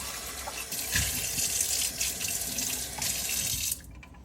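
Kitchen tap running as a coffee machine part is rinsed under the stream, with a knock about a second in; the water cuts off suddenly near the end as the tap is shut.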